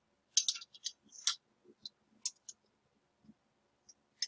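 Metal lab clamp hardware clicking and clinking as a three-prong clamp is taken off a clamp holder and handled. A rapid cluster of sharp clicks comes in the first second and a half, then scattered single clicks, and one more sharp click near the end.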